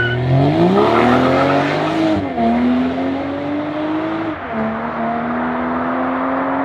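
BMW 840i's turbocharged inline-six accelerating through the gears with an ARMYTRIX turbo-back valvetronic exhaust. The revs rise steadily and drop sharply at upshifts about two seconds in and again about four and a half seconds in, then climb again.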